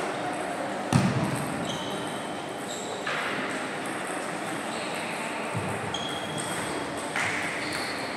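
Table tennis ball knocks echoing in a large sports hall, with one sharp knock about a second in, then the hall's steady background murmur and a few softer thuds.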